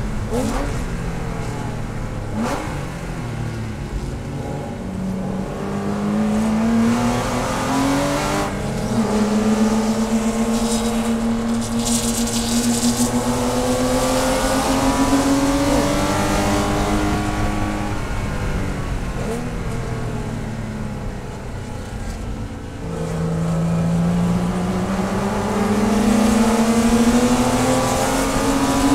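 Porsche race car's engine heard from inside the cockpit, running hard under throttle. Its pitch climbs through the middle, falls away about twenty seconds in as the driver lifts and brakes, then climbs again under acceleration near the end.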